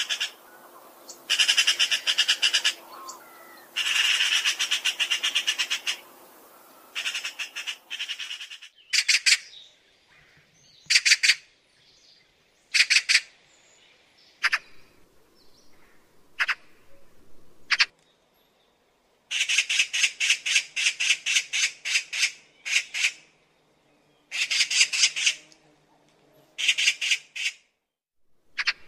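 Eurasian magpie chattering: bursts of a rapid rattling call. The bursts are long at first, shorter and spaced out in the middle, then long again near the end.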